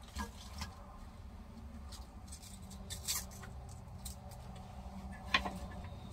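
Light clicks and rustles of chopped cabbage being handled and dropped into a skillet, with one sharper click a little past five seconds in. A steady low hum runs underneath.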